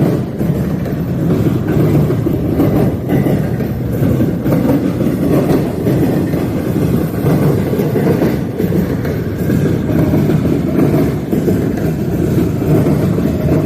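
Freight train rolling past, a steady rumble of wheels on rail with faint clicks of the wheels over joints.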